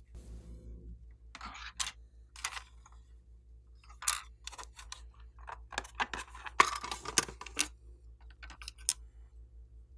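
Hard plastic watercolour palette case being handled and opened: a series of sharp plastic clicks and clatters, the loudest about six and a half seconds in.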